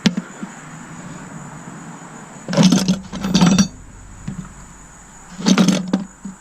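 Small metal hardware (nuts and screws) rattling and clattering in three bursts after a sharp click at the start, as the parts are handled and sorted. Crickets chirp steadily in the background.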